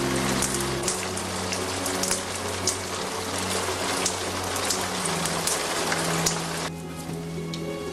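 Steady rain with scattered sharp drop hits, over a slow music score of sustained low notes. The rain cuts off abruptly near the end, leaving only the music.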